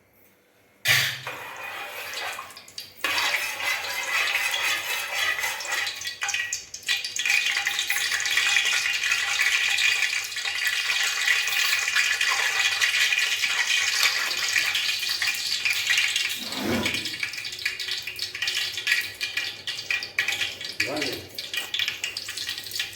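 Hot oil in a pan sizzling as food fries, starting suddenly about a second in and then hissing steadily.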